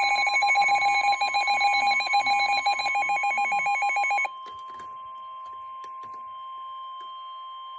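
NOAA Weather Radio warning alarm: a steady 1050 Hz tone sounding ahead of a new severe thunderstorm warning. For the first four seconds a louder, rapidly pulsing electronic alarm beep sounds over it; then the pulsing stops and the steady tone goes on alone.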